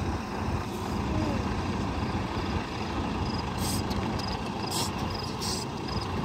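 Concrete mixer trucks' diesel engines running steadily as a low rumble. Several brief hisses come in the second half.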